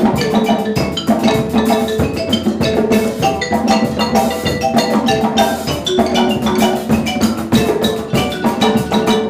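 Percussion ensemble playing a fast, steady groove: marimbas sounding repeated melodic notes over hand drums such as congas and djembes.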